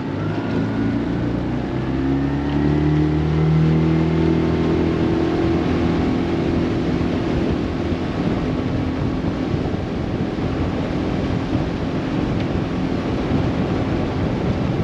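Small boat's outboard motor speeding up over the first few seconds, then running steady as the boat moves off.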